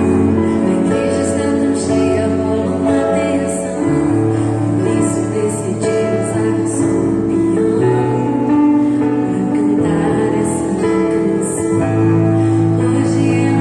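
Slow, soft gospel music: sustained chords over a low bass note, with the harmony changing about every four seconds.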